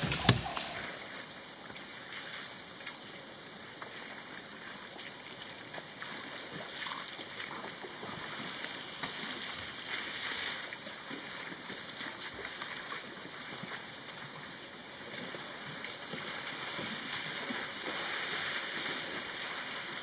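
Faint waterhole ambience: water sloshing with small irregular splashes as African elephants wade and drink, over a steady faint hiss.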